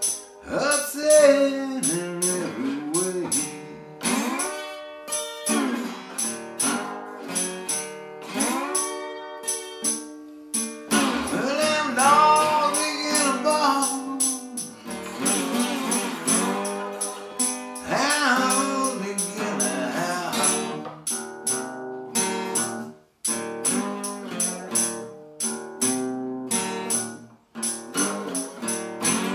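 A blues played on a steel-string acoustic guitar, with a man singing in phrases and a tambourine jingling in steady time.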